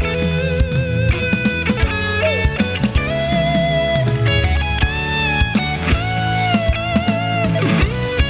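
Band playing the instrumental intro of a pop-rock song: an electric lead guitar plays a melody of held, wavering notes with bends over bass and a steady drum beat.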